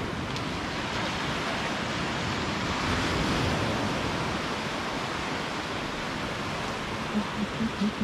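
Sea surf washing onto a sandy beach, a steady rushing hiss that swells about three seconds in. A few short low thumps come near the end.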